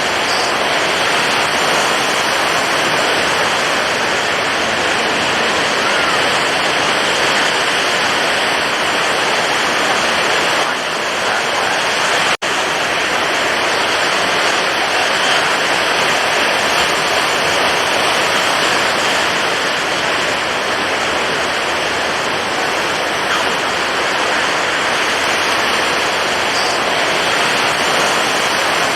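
Stormy ocean surf: a loud, steady roar of rushing water with no lulls between waves. It cuts out for a split second about twelve seconds in.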